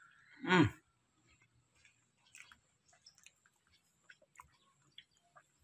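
A person chewing a mouthful of soft durian flesh, with faint scattered wet mouth clicks. About half a second in comes one short, louder vocal sound falling in pitch.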